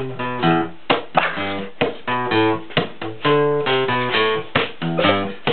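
Acoustic guitar music: strummed chords that change every half second or so, with sharp percussive hits between them.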